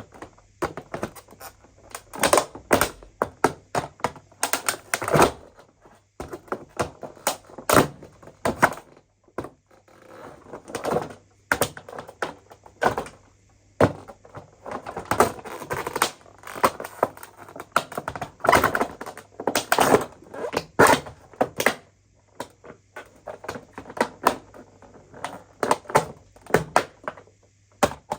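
Irregular clicks, taps and knocks of hard parts being handled, coming in quick clusters with short pauses.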